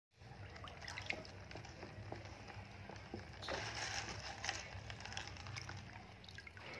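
Faint water sloshing with scattered small clicks and knocks as a hand moves a turtle and plastic toys about in a plastic tub of water, with a busier splashing stretch a little past the middle.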